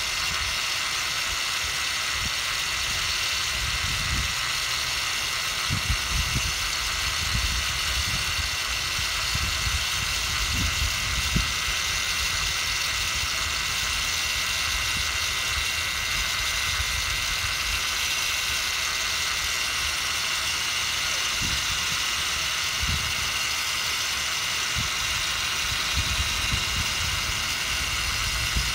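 DeWalt rotary polisher running steadily at about 1,000–1,400 RPM, turning a flex shaft whose small polishing head buffs a powder-coated wheel: a constant whine. Irregular low gusts of wind buffet the microphone.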